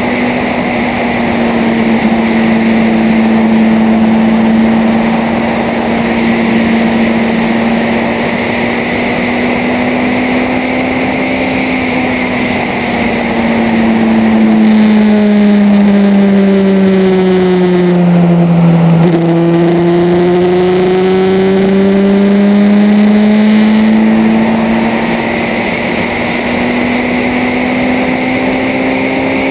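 A motorboat engine drones steadily, growing louder in the middle. Its pitch sinks and then climbs back about two-thirds of the way through.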